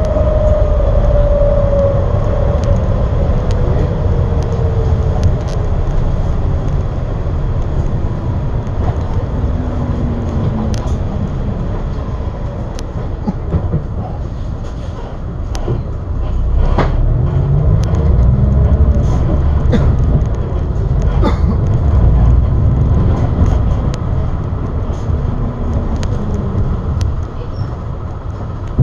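Limousine bus driving, heard from inside: a steady, loud low engine and road rumble, with a whine that falls in pitch over the first few seconds and rises again several times as the bus picks up speed. Scattered small rattles and clicks run through it, and the noise swells for several seconds past the middle.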